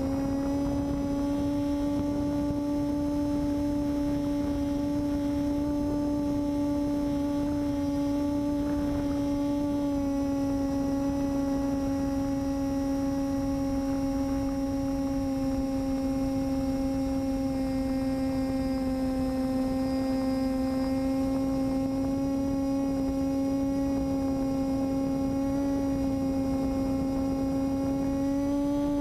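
Steady drone of an FPV plane's electric motor and propeller, heard over the video link's audio. It holds one pitch with overtones, dipping slightly about ten seconds in and rising a little near the end.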